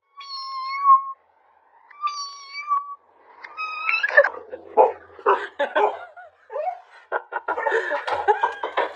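Cat meowing: three drawn-out meows in the first four seconds, the first two held at a steady pitch and the third rising. A jumble of irregular, noisier sounds follows.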